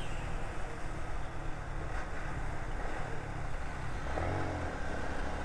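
Motorcycle engine running steadily at riding speed, mixed with wind rushing over the action camera's microphone.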